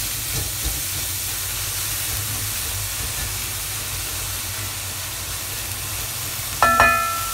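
Cut green beans sizzling steadily in hot oil in an aluminium kadai over a high flame, turned now and then with a wooden spatula, with a low hum under it. About six and a half seconds in, the pan gives one short ringing knock as the spatula strikes it.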